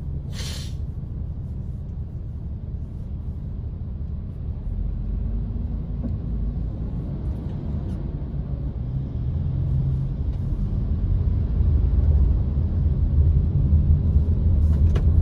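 Car cabin noise: a low engine and road rumble, steady while the car waits in traffic and growing louder over the last several seconds as the car moves off.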